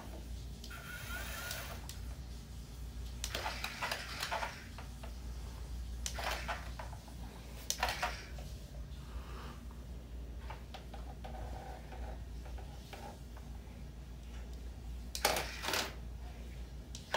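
Sawfish wooden robot kit's small electric motors whirring in short bursts, about six of them, as it is driven in starts and stops across a laminate floor, the loudest near the end.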